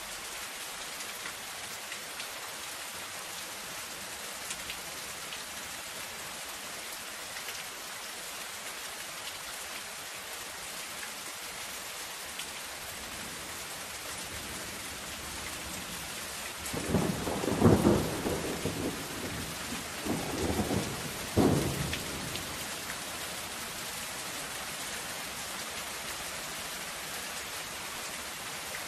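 Steady soft rain falling on a zinc roof sheet. A little past halfway, thunder rumbles in three close swells, the loudest sound here.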